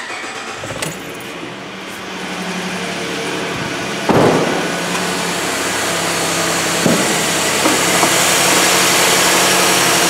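Ford F-150's 3.7-litre V6 started with the key, catching within a couple of seconds and then idling steadily. A sharp thump comes about four seconds in, and a hiss builds in the higher range over the last few seconds.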